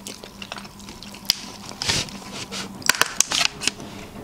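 Close-up eating noises at a sushi table: a string of sharp, crisp clicks and crunches, sparse at first and bunched together about three seconds in.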